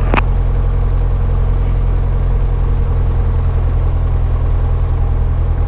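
Cessna 172 Skyhawk's piston engine running steadily at low taxi power, a constant low drone, with a single click near the start.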